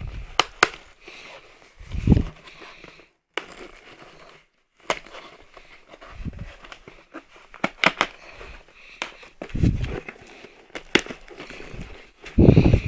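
Cardboard shipping box being struck and worked open with the stiff brim of a snapback hat: irregular dull thumps and sharp knocks on the cardboard, several of them in quick pairs.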